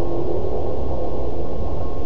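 Dark ambient drone music from a Korg Poly-800 synthesizer and samples: a steady, dense hiss-like drone heavy in the low end, with a thin high tone held over it and a brief lower tone just at the start.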